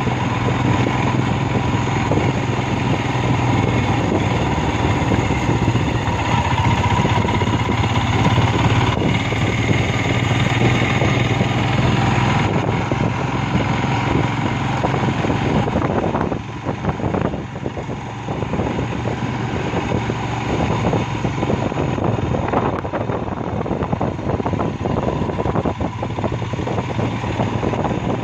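Royal Enfield Himalayan motorcycle engine running as the bike is ridden, a steady hum under a dense rush of wind and road noise; the sound drops somewhat about sixteen seconds in.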